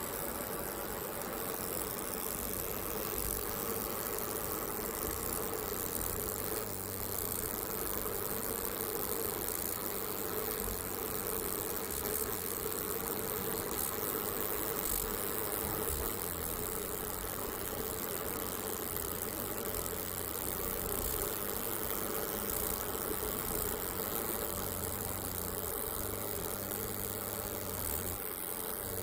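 3D laser marking machine running with a steady hum and hiss as it marks a curved metal ring.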